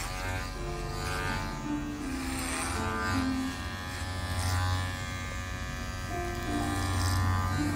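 Background music over the steady buzz of electric hair clippers fitted with a guide comb, cutting short hair.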